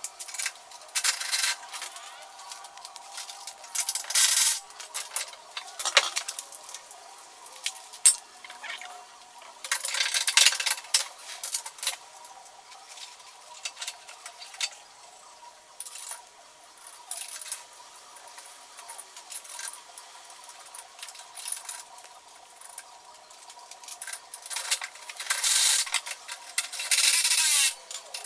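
Metal hand tools and bolts clinking, scraping and rattling against the steel axle and spring mounts of a golf cart while a rear leaf spring is bolted in. Several louder bursts of a second or two stand out among the clinks.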